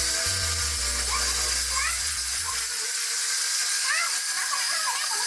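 Angle grinder fitted with a sanding drum running against wood, a steady high hiss with a thin whine, as it sands the rim of a vase. Low notes fade out about halfway through, and short high chirps come and go in the second half.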